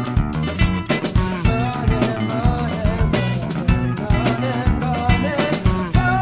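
Rock band playing, with a steady drum beat under bass and guitar. A wavering lead melody line comes in about a second and a half in.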